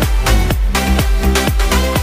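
Upbeat electronic dance background music with a steady beat of about two strikes a second.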